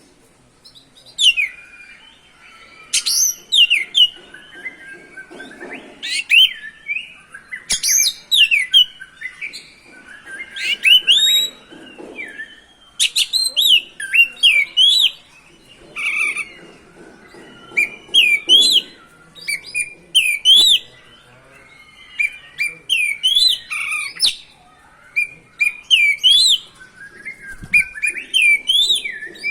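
Oriental magpie-robin (kacer) in full song: phrase after phrase of loud, sharp whistles and chirps that glide up and down, with only brief pauses between phrases.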